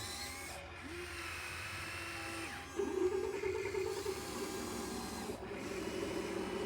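Small electric motors and gearing of a radio-controlled model excavator whining as it works. The whine holds steady tones that shift in steps, growing louder about three seconds in.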